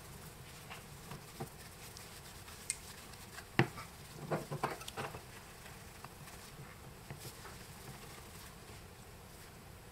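A Bakelite telephone handset being polished with a cloth and turned in gloved hands: soft rubbing with scattered small clicks and knocks as its metal-ringed cups are handled, a cluster of them about midway through.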